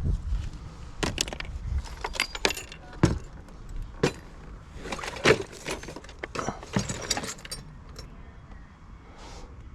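Small hard objects, likely bits of scrap, clinking and clattering as they are handled: a dozen or so sharp knocks with a light metallic jingle, starting about a second in and dying away after about seven and a half seconds.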